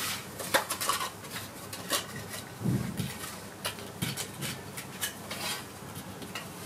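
Calico cat grooming close up, licking its paw and washing its face: irregular quick, wet licking clicks, with a soft low rustle about two and a half seconds in.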